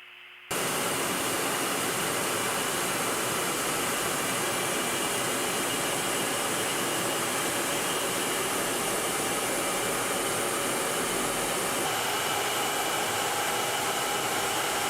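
Jet engine running at a steady rushing noise with a faint high whine; it starts abruptly about half a second in.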